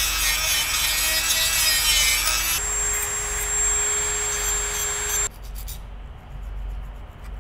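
Dremel rotary tool running with an abrasive grinding-stone bit against the end of a metal spoon: a steady whine over a grinding hiss, which shifts slightly higher about two and a half seconds in. It stops a little after five seconds, and quieter strokes of a hand file on the metal follow.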